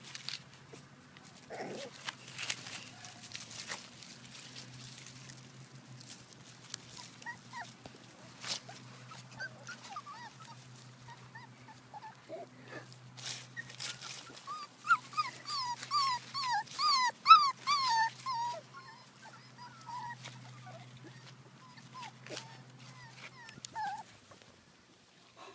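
Brittany puppies whining and yipping as they play, with a quick run of high-pitched yelps a little past halfway through, the loudest part. Scattered light clicks and rustles through the rest.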